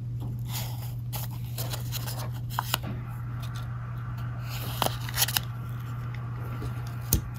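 Paper and a small cardboard box being handled, rustling with scattered light clicks and taps over a steady low hum.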